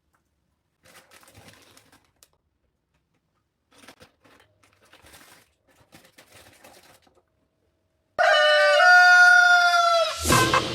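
A few faint scuffling noises, then about eight seconds in a loud rooster crow, one long call held for about two seconds. A loud hit comes right after it near the end.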